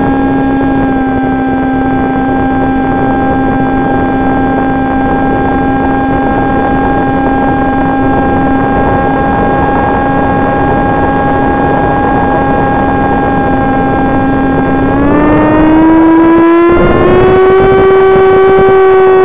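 Electric motor and propeller of an FPV flying wing, heard from its onboard camera: a steady whine with a rushing air noise under it. About fifteen seconds in the motor speeds up and the whine rises in pitch and gets a little louder.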